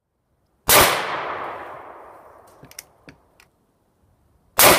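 Two gunshots from a Chiappa M6 X-Caliber survival gun, one just under a second in and one near the end, each sharp and loud with a long echo dying away. A few faint clicks fall between the shots.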